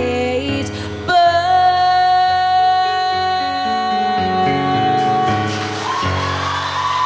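A female voice sings the song's final long held note over piano accompaniment, ending about five seconds in. Near the end, audience cheering and applause swell up.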